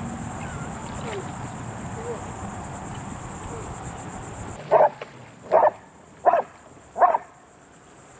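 Australian shepherd barking four times, about two-thirds of a second apart, starting about halfway through: insistent barks demanding to be taken swimming.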